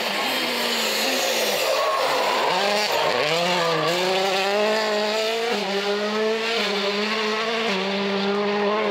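World Rally Car's 1.6-litre turbocharged four-cylinder engine revving hard, rising and falling for the first few seconds. About three seconds in it is held at high, nearly steady revs with a few small steps while the car spins donuts and its tyres squeal on tarmac in a cloud of smoke.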